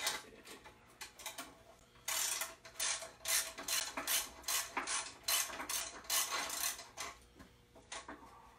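Hand ratchet wrench clicking in quick repeated back strokes while loosening bolts on an engine's front accessory drive brackets. The strokes run from about two seconds in until about a second before the end, with a few lighter clicks at the start.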